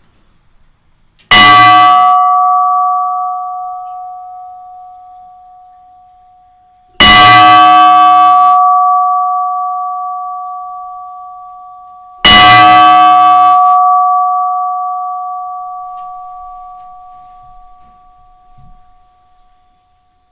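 A new church bell struck three times, about five and a half seconds apart. Each stroke rings out and slowly dies away, and the last fades out near the end.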